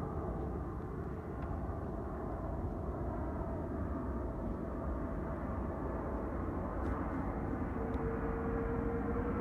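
Airplane engines heard from the ground: a steady rumble that grows slightly louder, with a whining tone that rises slowly in pitch in the second half.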